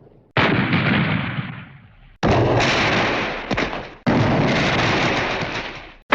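Hanna-Barbera cartoon explosion sound effects played one after another: three blasts about two seconds apart, each hitting suddenly and fading away. A fourth begins at the very end.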